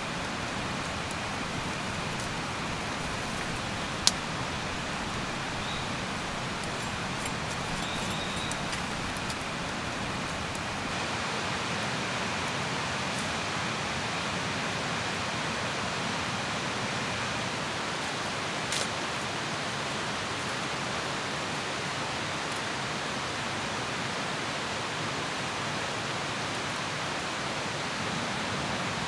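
Steady rushing noise with a faint steady high tone throughout. Over the first ten seconds or so a wood campfire crackles, with one loud pop about four seconds in.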